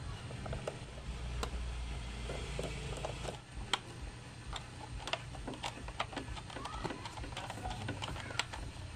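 Irregular light clicks and ticks of a screwdriver and hand tools against the screws and plastic parts around a Bajaj Dominar 400's airbox, over a low steady hum.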